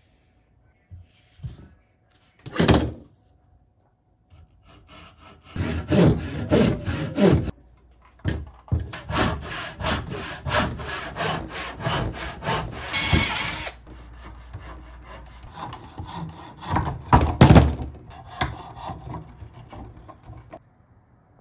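Hand saws cutting through a slice of log: runs of quick back-and-forth strokes from a backsaw in a plastic mitre box, and later a coping saw. The first few seconds hold only a few light taps and one short, loud scrape before the sawing starts.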